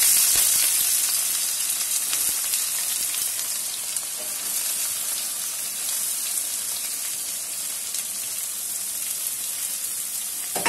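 Chopped onions sizzling in hot mustard oil in a metal wok. It is a steady frying hiss, loudest at the start and settling a little lower after a few seconds.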